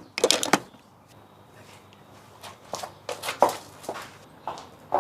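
A quick clatter of sharp knocks, then footsteps on a hard floor at an even pace of about two a second.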